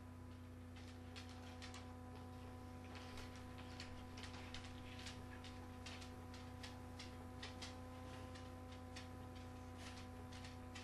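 Faint, irregular light clicks and ticks, several a second, over a steady electrical hum.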